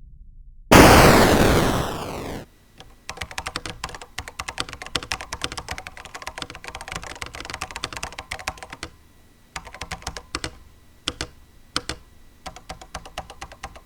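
A loud noisy whoosh about a second in, sweeping downward and cutting off after about a second and a half. It is followed by irregular clicking of typing on a computer keyboard, with two brief pauses.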